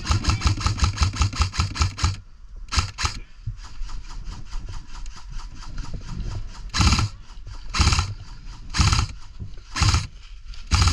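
Airsoft electric gun firing a rapid full-auto burst of about seven shots a second that stops about 2 s in, then two quick shots, then single shots about once a second near the end.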